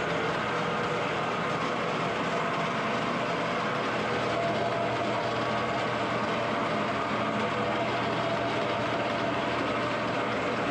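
Concrete grinder running steadily, grinding at paint on a concrete floor. It is only scratching the paint rather than taking it off.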